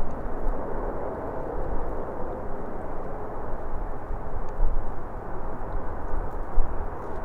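Jet airliner engines rumbling steadily, with a faint held whine in the middle. Gusty wind buffets the microphone with uneven low thumps.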